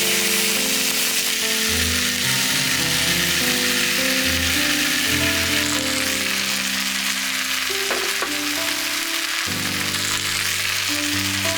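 Food sizzling steadily in a hot frying pan, under background music with sustained notes.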